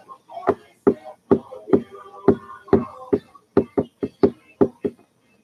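A series of sharp knocks, about a dozen at two to three a second, coming closer together near the end, with faint tones between them.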